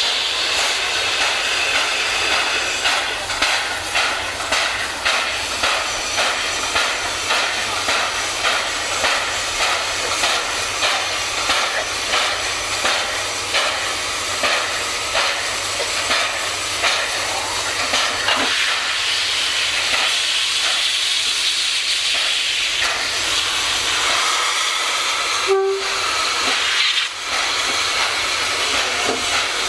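Steam locomotive working slowly, its exhaust chuffing about one and a half times a second over a steady hiss of steam escaping at the cylinders. After the middle the chuffs fade into the hiss, and a brief tone sounds about 25 seconds in.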